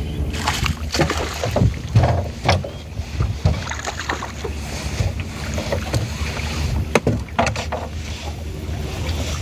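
Sounds aboard a fishing boat on a lake: a steady low rumble with wind on the microphone, broken by irregular sharp knocks and splashes.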